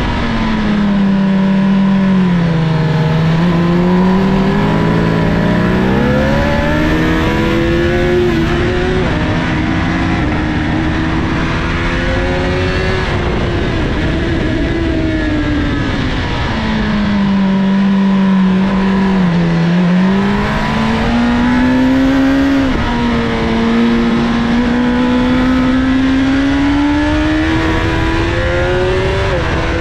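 2007 Honda CBR1000RR Fireblade's inline-four engine heard onboard at track speed, its pitch falling under braking and downshifts and climbing again under acceleration several times over, with steps at the gear changes. A steady rush of wind and road noise runs underneath.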